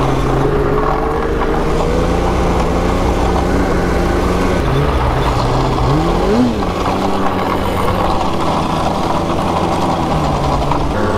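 Polaris 9R two-stroke snowmobile engine running steadily under way, revving up briefly and back down about six seconds in.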